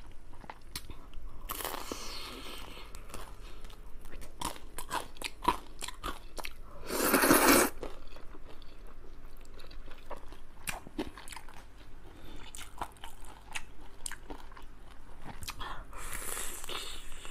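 Close-miked eating: crunchy bites and chewing of a deep-fried chicken cutlet, with a loud slurp of noodles about seven seconds in.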